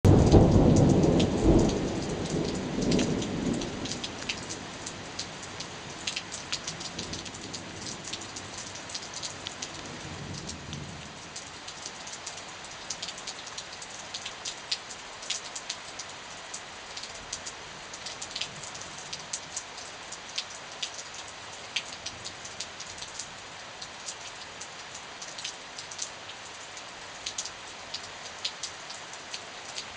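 Thunderstorm with heavy rain falling steadily, many sharp drop ticks among the hiss. A loud rumble of thunder at the start dies away over about four seconds, and a fainter rumble comes about ten seconds in.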